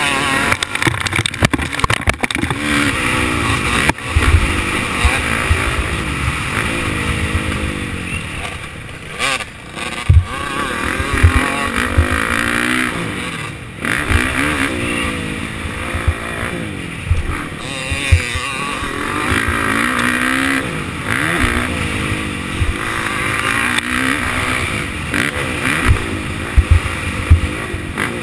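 Dirt bike engine revving up and falling back again and again as the rider accelerates and shifts through the gears on a motocross track, heard close up from an onboard camera, with wind noise and occasional low thumps.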